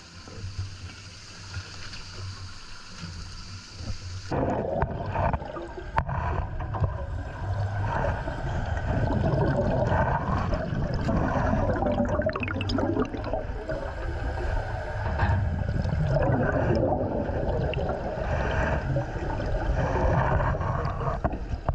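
Water gurgling and bubbling. The sound changes abruptly about four seconds in and becomes louder, fuller bubbling.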